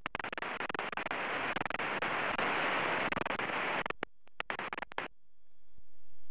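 Aircraft radio hiss and crackle on the headset audio, lasting about four seconds, then it cuts off and goes near quiet with a few scattered clicks.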